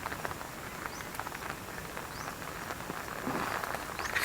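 Steady rain falling, with a steady hiss and many small ticks of drops hitting surfaces.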